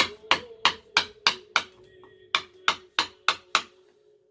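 Mallet striking a carving chisel into wood in a steady run of sharp knocks, about three a second, with a short pause about halfway through.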